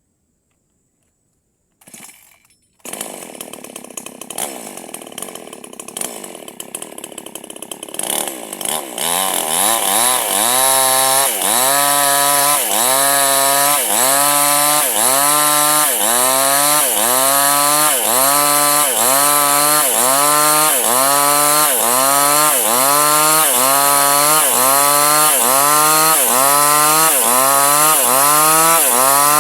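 A chainsaw starts about three seconds in and runs. From about nine seconds it runs loud, its pitch rising and dropping in an even cycle a little over once a second as it cuts Medang kurung timber.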